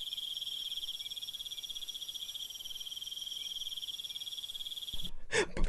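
Crickets trilling steadily in a high, finely pulsing chorus. About five seconds in it stops and louder sounds cut in.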